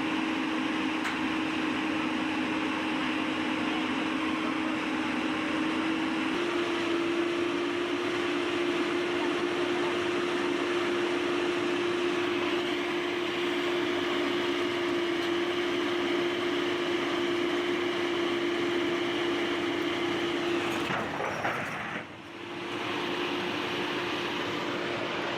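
A heavy machine's engine running steadily with a held low drone. The drone steps slightly higher in pitch about six seconds in and dips briefly near the end.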